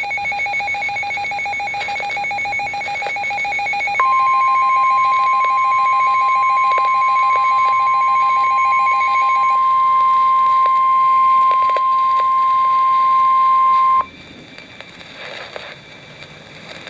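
Emergency alert tones: rapid electronic beeping, joined about four seconds in by the steady single-pitch NOAA Weather Radio warning alarm tone (1050 Hz), which signals a warning. The alarm tone runs about ten seconds and cuts off abruptly; the beeping stops partway through it, leaving a faint background afterwards.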